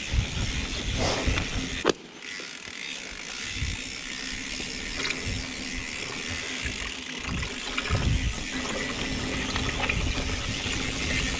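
Mountain bike rolling along a dirt trail: steady tyre and drivetrain noise with irregular low thumps of wind and bumps on the microphone. There is a sharp click about two seconds in, after which it goes briefly quieter.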